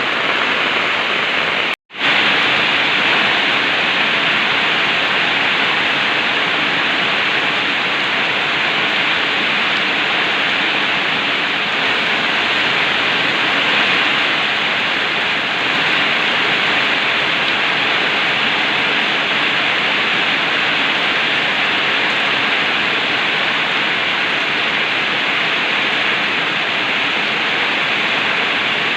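Heavy rain pouring down steadily, a dense even hiss, with the sound cutting out for an instant just under two seconds in.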